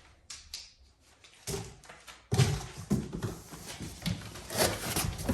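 Unboxing noise from packaging and parts being handled. First a few light clicks, then from about two seconds in a busy run of rustling and knocking.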